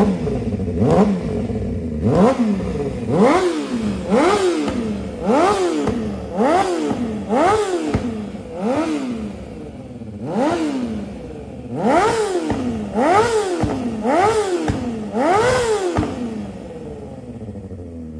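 A 2007 Honda CBR600RR's inline-four, on a CS Racing full exhaust, is blipped over and over, about once a second, each rev rising and falling back, before it settles to idle near the end. There is a clatter under the revs, which the owner puts down to an exhaust header tick and cam/timing chain rattle.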